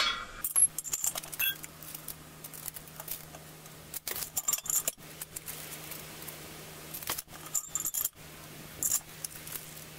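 Steel brackets and bolts of a tractor 3-point quick hitch clinking and knocking in irregular bunches as they are handled and repositioned to set the hook height. A faint steady low hum runs underneath.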